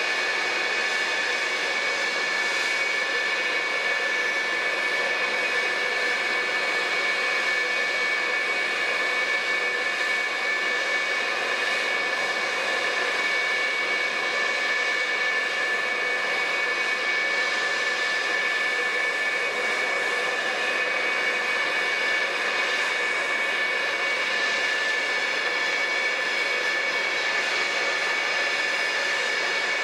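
McDonnell Douglas F-4EJ Phantom II's twin J79 turbojets idling while parked: a steady high whine over an even rush of jet noise.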